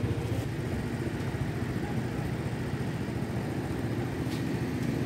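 Steady low rumble of street traffic, car engines running.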